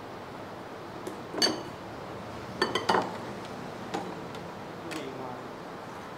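Metal spoons clinking against ceramic soup bowls: a few sharp clinks, one about a second and a half in with a brief ring, then a quick cluster of clinks around three seconds and softer ones after.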